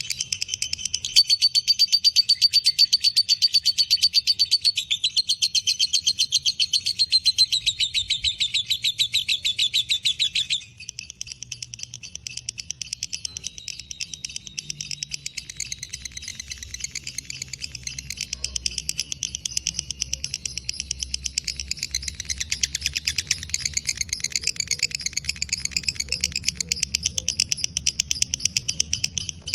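Lovebird (fighter type) singing its long 'ngekek' song: an unbroken, rapid chattering trill. It is louder for about the first ten seconds, then carries on more softly.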